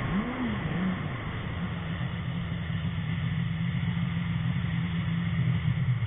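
Yamaha GP1300R personal watercraft's two-stroke triple engine under throttle: its pitch dips and climbs again in the first second, then holds steady at speed over a constant rushing noise.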